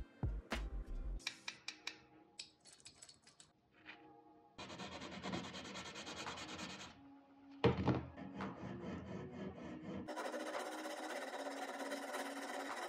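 Abrasive rubbing on the bare metal body of a diecast model pickup: a few short scraping strokes and clicks at first, a sanding sponge rubbing in a steady run from about the middle, then steady scraping with a flat metal tool over filler on the front near the end.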